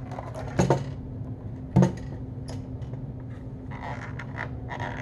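Hard plastic monitor back cover being handled and lifted off. It knocks twice, about half a second in and again near two seconds, with lighter clicks and rubbing toward the end.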